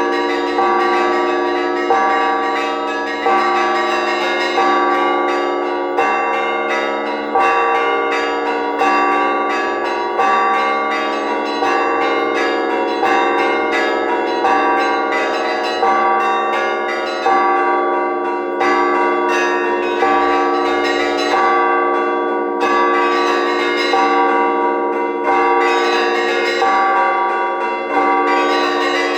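Orthodox church bells in a festive peal calling to the Divine Liturgy: smaller bells chime rapidly in a rhythmic pattern over a heavier bell struck about every second and a half.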